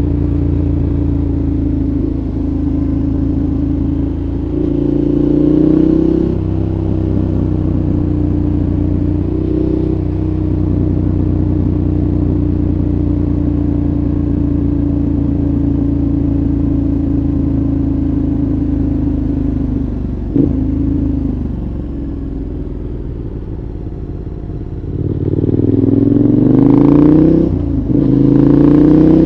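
2014 KTM 1190 Adventure's V-twin through a Giannelli exhaust with dB killer, running steadily at part throttle. There is a short rise in revs about five seconds in and a quieter stretch a little past twenty seconds. Near the end the revs climb twice under acceleration.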